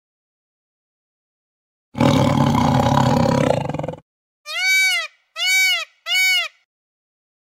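A big cat roars once for about two seconds, starting about two seconds in. Then a peacock gives three short, loud calls in quick succession, each rising and falling in pitch.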